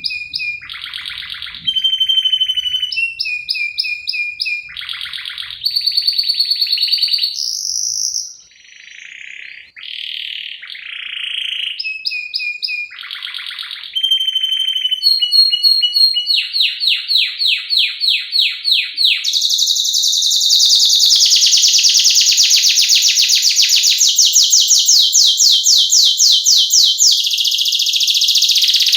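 Domestic canary singing: a string of short phrases of quickly repeated notes and trills that switch every second or two, then a long, fast rolling trill through the second half.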